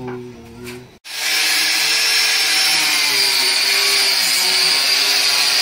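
Angle grinder running against a guadua bamboo pole, a loud steady grinding that starts abruptly about a second in.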